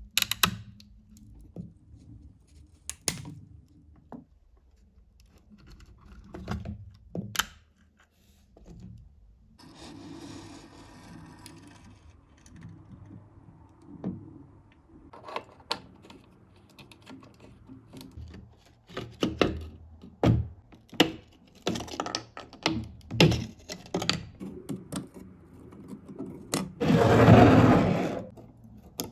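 Workbench sounds of scale-model restoration: scattered sharp clicks, taps and knocks of small tools and parts, with a softer hissing stretch partway through and a louder rushing burst lasting about a second and a half near the end.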